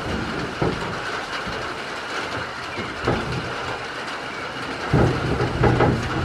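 Steady rain noise on the barn roof, with several dull thuds and rustles as a goat pushes its head and horns against a person; the loudest thuds come near the end.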